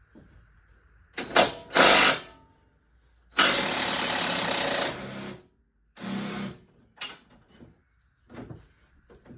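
Power impact wrench undoing a bolt in bursts: two short blasts a little over a second in, a steady run of about two seconds in the middle, then a couple of shorter blips.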